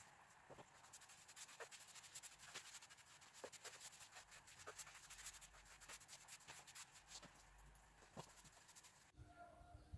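Faint rubbing and scratching with scattered small clicks, like work by hand on a wooden surface. About nine seconds in it cuts abruptly to faint outdoor background with a bird chirping.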